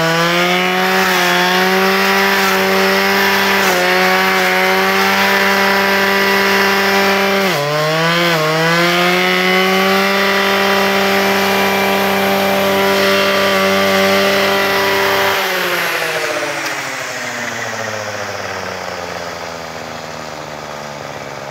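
Husqvarna 535 RJ two-stroke brushcutter running at high revs, its engine note briefly dipping under load three times as the Brushdestructor blade cuts into brush. Over the last several seconds the revs fall away steadily and the sound gets quieter.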